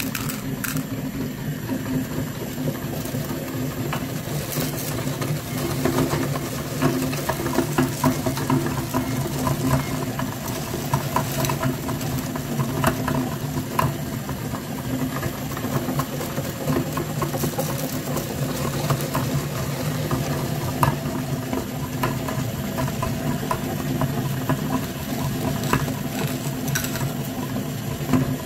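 Meat grinder motor running with a steady low hum, while hard candy-coated chocolates click and rattle as they are stirred by hand and crushed through the grinder.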